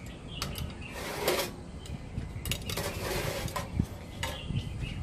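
Metal tongs and a hinged wire grill basket clinking and scraping, with several sharp clicks and two longer scrapes, as banana-leaf-wrapped lemper are loaded into the basket.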